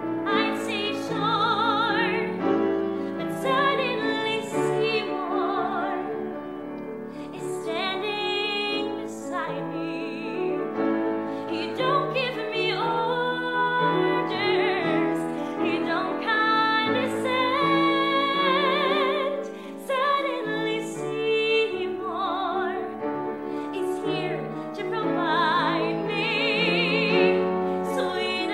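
A woman singing a show tune in a trained, operatic style with wide vibrato, accompanied by a grand piano.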